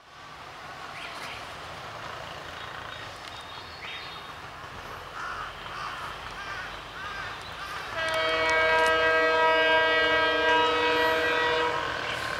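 Bangladesh Railway diesel-electric locomotive approaching with a low engine rumble, then sounding its air horn about eight seconds in: a chord of several steady notes held for nearly four seconds.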